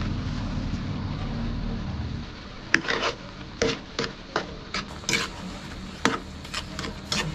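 A metal spoon scraping and knocking against a metal pan while stirring sugar into thick mango pulp. The sharp, irregular strokes start just under three seconds in and come about two a second. Before them there is a steady low rumble.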